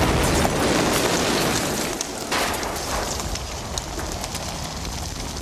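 A loud explosion-like rumble full of crackling, heaviest for the first two seconds and then dying away.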